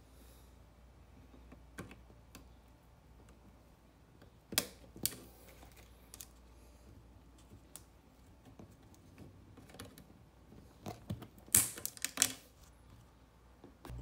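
Scattered sharp clicks and taps from an old rotary potentiometer being rocked and bent over on a circuit board to free it for removal, with a louder pair of clicks about five seconds in and a quick cluster around twelve seconds.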